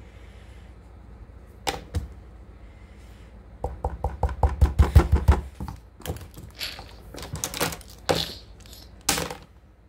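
Close handling noise from plastic highlighters and paper: two sharp clicks, then a fast run of knocks for about two seconds, then scattered clattering and rustling, with one louder knock near the end.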